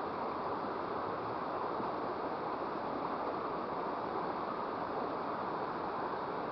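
Steady rushing of flowing water in a small river, an even noise without breaks or distinct splashes.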